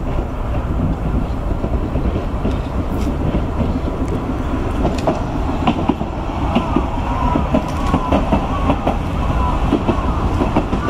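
Hankai Tramway streetcar running past with a steady low rumble and wheels clicking over the rail joints. From about six seconds in there are brief, faint high squeals from the wheels on the rails.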